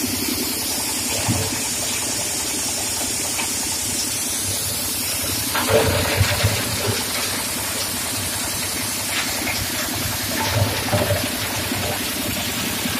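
Coal crusher running: a steady rushing rumble over a low machine hum. Irregular knocks and clatters stand out briefly, most strongly about halfway through and again near the end.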